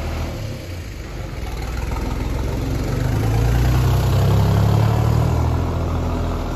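Engine of a farm vehicle running nearby, a deep steady drone that grows louder from about three seconds in and eases again near the end.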